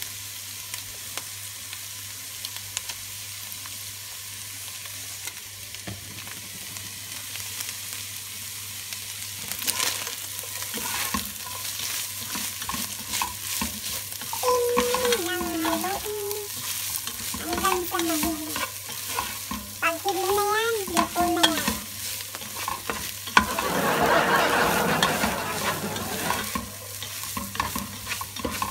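Minced beef and chopped vegetables sizzling in a nonstick pot while being stirred with a spatula, with a steady hiss and many small scrapes and taps of the spatula against the pan. The stirring gets louder for a few seconds near the end, and a faint voice is heard partway through.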